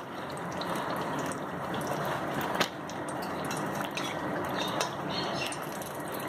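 Pastry-wrapped chicken parcels deep-frying in hot oil in a wok: a steady sizzling and bubbling, with small crackles and one sharper tick about two and a half seconds in.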